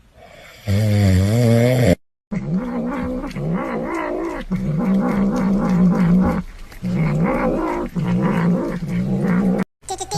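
A cat yowling in long, wavering calls, repeated several times, with a short silent break about two seconds in.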